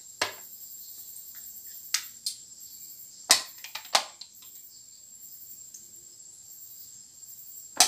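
Plastic detergent bottle and clear plastic measuring cup knocking and clicking against each other while detergent is poured, about six sharp clicks spread out, the loudest a little past a third of the way in and another near the end. A steady faint high hiss with a thin high whine runs underneath.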